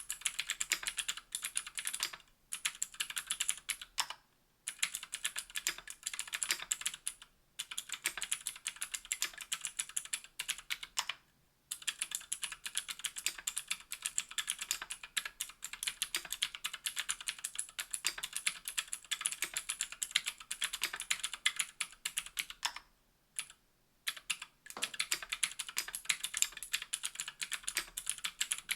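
Continuous typing on a KBDfans Tofu60 aluminium 60% mechanical keyboard with Gateron Green clicky switches and GMK keycaps, giving a dense run of rapid clicks. The run breaks for a few short pauses and one longer pause of about two seconds late on.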